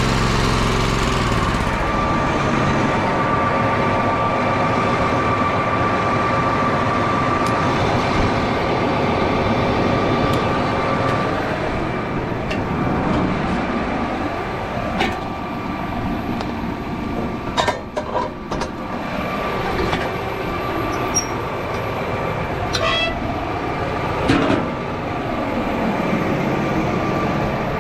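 Small engine-driven transfer pump on a nurse-tank trailer running steadily with a steady tone while filling a sprayer. Past the middle come a few sharp metallic clanks as the hose's valve and coupling are worked.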